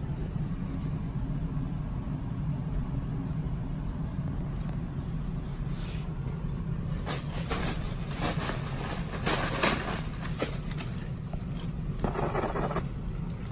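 Plastic air-pillow packing film crinkling and crackling as a kitten moves through it, in bursts from about halfway in, over a steady low hum.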